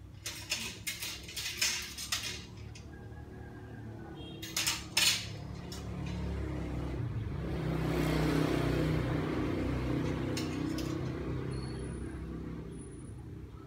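Clothes hangers clinking and clattering against each other and the metal drying rack as they are handled, in quick clusters of sharp clicks. Midway a low rumble swells and fades over several seconds.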